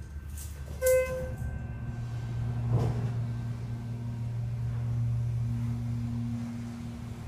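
A short electronic elevator chime sounds once, about a second in. From about two and a half seconds a steady low hum builds as the Schindler 330A hydraulic elevator's pump motor runs, over a low rumble.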